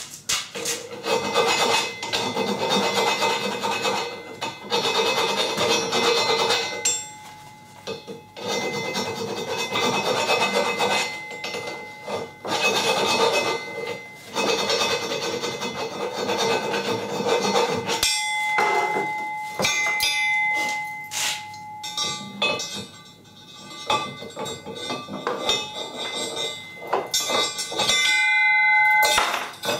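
Steel being filed by hand in long stretches of scraping strokes, reworking a welded bracket so a bolt will pass through. From about halfway on, sharp metal clinks and taps with brief ringing.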